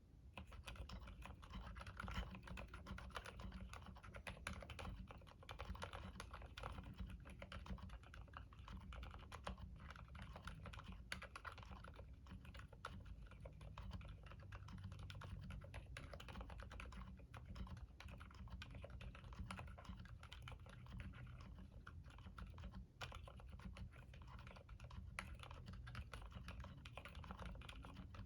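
Continuous typing on a mechanical keyboard with Gateron silent black linear switches and 100 g springs: soft, damped keystrokes with a low thock and little click, at a steady quick pace.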